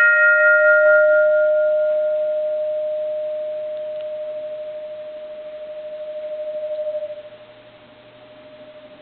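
Bronze Japanese Buddhist temple bell ringing on from a strike made a moment before: one sustained hum that pulses slowly as it fades, with higher overtones dying away within the first two seconds or so. The hum drops sharply about seven seconds in and lingers faintly.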